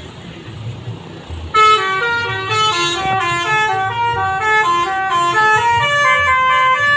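Indonesian bus 'telolet' musical horn playing a quick tune of short stepped notes, coming in suddenly about a second and a half in over low traffic rumble.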